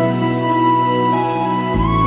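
Background music of soft, slow sustained chords, with a chord change and a deep bass note entering near the end.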